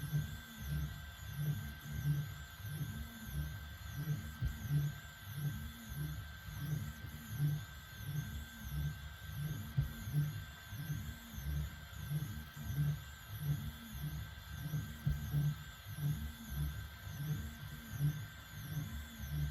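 LABISTS X1 Mini 3D printer running, its stepper motors whining in a regular rhythm, each note rising then falling in pitch about every half second, over a steady hum.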